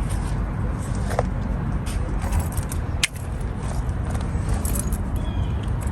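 Scattered clicks and light clattering of small fidget toys being handled, over a steady low rumble.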